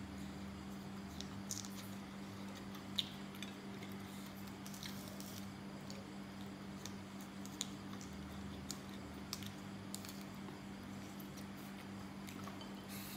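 Scattered small clicks and crackles of hands splitting fresh green pods and of eating, over a steady low hum from an electric fan.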